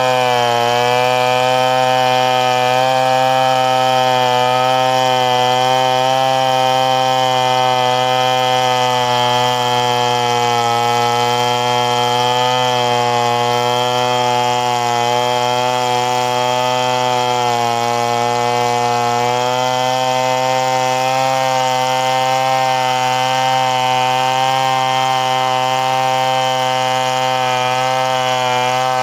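Two-stroke chainsaw running at high speed through a long cut in wood, its pitch sagging briefly a few times as the chain bites.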